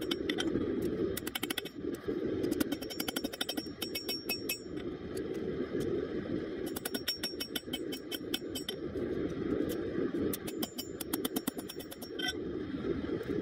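Hand hammer striking red-hot rebar on a steel anvil in quick runs of ringing blows, several a second, with short pauses between runs, as the bar is flattened into a knife blade. A steady rush from the lit propane forge lies underneath.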